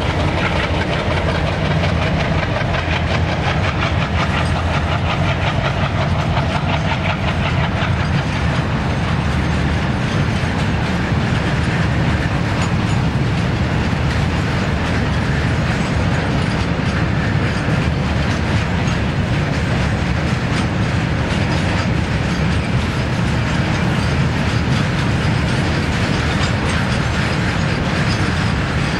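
Long freight train of flat wagons loaded with steel rolling past, the wheels clicking over the rail joints in a steady clickety-clack.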